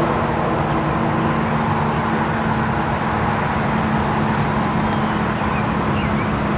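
Steady roar of interstate highway traffic, with a few steady low tones running underneath.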